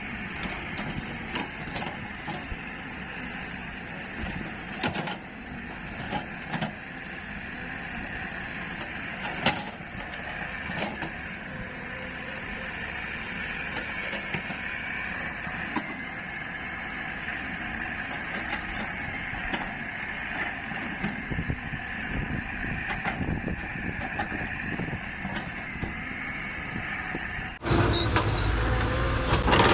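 Heavy machinery running steadily, with scattered clanks and knocks. Near the end it cuts suddenly to a louder machine.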